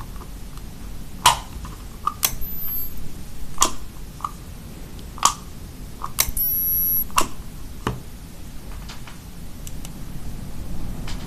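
Sharp clicks and knocks, about seven, a second or so apart, from hands working the control knob and handpiece of a portable dental ultrasonic scaler unit, with a short high-pitched tone about six seconds in.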